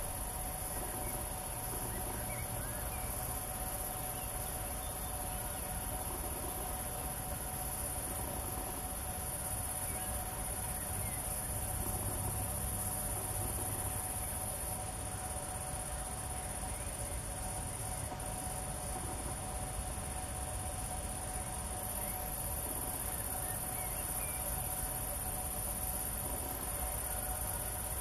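Crickets chirring in a continuous high-pitched chorus that holds steady throughout.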